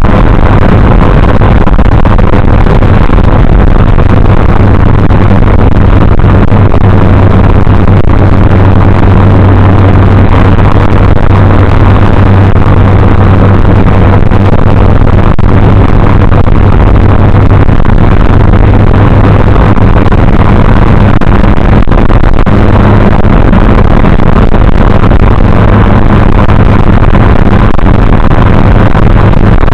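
Triumph TR3A's four-cylinder engine and exhaust running steadily on the road, picked up by a dash cam. The sound is harsh and distorted, because the engine is loud enough to overload the dash cam's recording.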